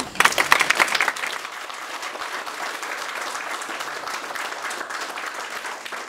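Audience applauding, loudest in the first second, then settling into steady clapping.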